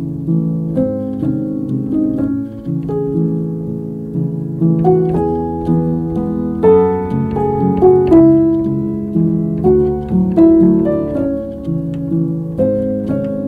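Instrumental background music, a melody of separate notes struck one after another over low sustained tones.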